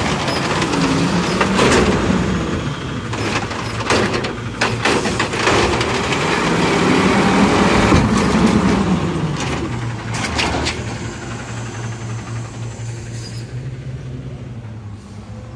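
Natural-gas automated side-loader garbage truck running while its arm lifts, dumps and lowers a wheeled trash cart: a hydraulic whine rises and falls over the engine hum, with clunks and bangs of the cart and falling trash, about two to five seconds in and again around ten seconds in. The truck gets quieter over the last few seconds.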